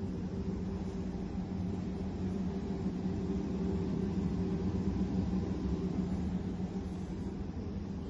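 Steady low hum of an air-conditioning system, with a droning tone over a low rumble.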